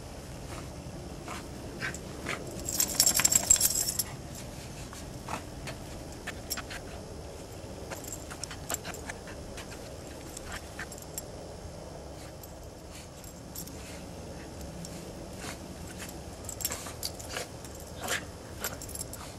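A dog rolling and digging in fresh snow: scattered soft crunches and clicks, with a loud burst of metal jingling about three seconds in and more brief jingles near the end.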